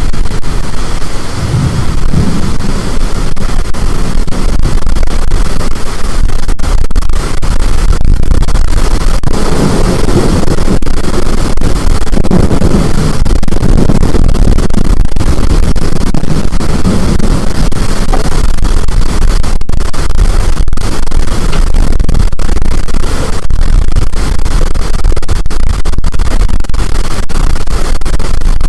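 High storm wind buffeting the microphone, a loud, steady rush of noise that overloads the recording.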